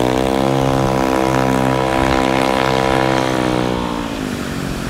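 Heavily modified Honda PCX 175 scooter's single-cylinder engine pulling away at a steady high pitch, fading with distance until it drops out about four seconds in.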